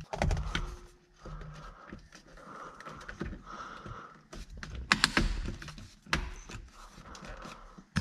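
Driver's airbag module being pressed into an Audi RS7 flat-bottom steering wheel: handling rustle and a series of plastic knocks and clicks, loudest about five seconds in, as its clips snap into place.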